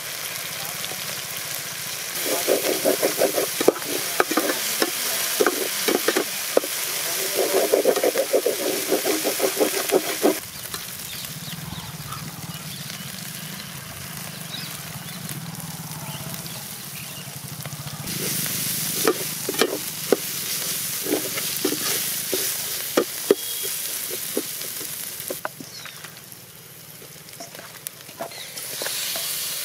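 Oil sizzling hard around onions, green chillies and greens frying in a pan, with stirring and sharp clinks of a utensil on the metal. The hiss comes in two louder spells, one about two seconds in and another past the middle.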